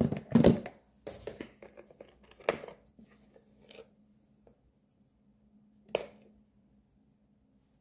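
Kitchen utensils being handled on a countertop: scattered rustles and knocks, then one sharp knock about six seconds in, over a faint steady low hum.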